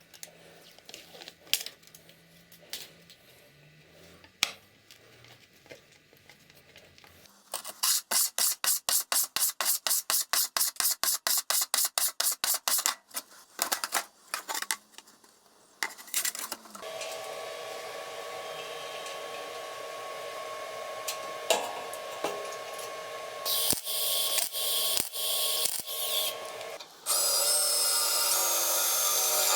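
Workshop tool work: a run of rapid, evenly spaced scraping strokes, about five a second, then a small electric machine running steadily with a hum, and near the end a louder power tool.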